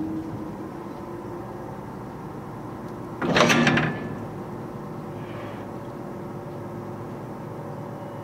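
Wire ferry coming in to its landing: a steady hum of its machinery, with one loud scraping clank lasting under a second about three seconds in.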